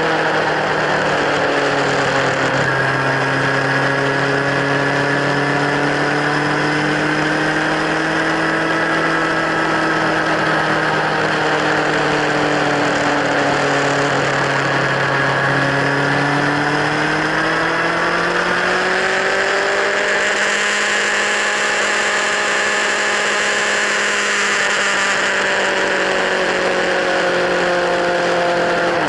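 Kawasaki Z1000 inline-four engine running through LeoVince slip-on exhausts, held steady with slow drifts in pitch. It dips slightly a little before halfway, rises about two-thirds in, and eases down again near the end.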